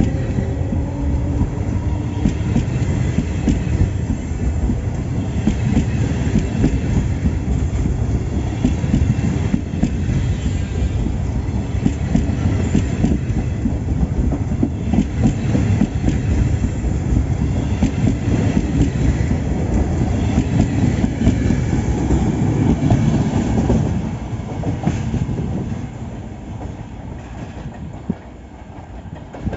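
A passenger train passing through a station, its wheels rumbling and clattering on the rails. The sound fades away over the last few seconds as the train recedes.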